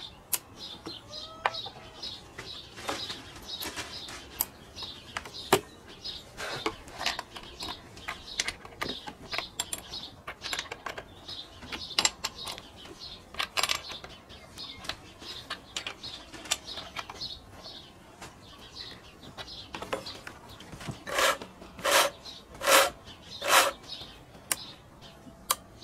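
A stopped chainsaw's bar and chain being worked on by hand: scattered metal clicks and scrapes, then four rasping strokes along the chain near the end.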